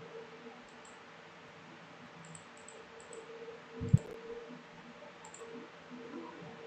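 Computer mouse clicking a few times, faint and short, with one sharper, louder click about four seconds in, over a faint steady hum.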